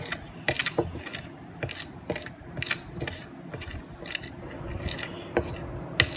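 Metal spoon scraping and stirring a thick cornstarch-and-shampoo paste on a plate, in repeated strokes about two a second.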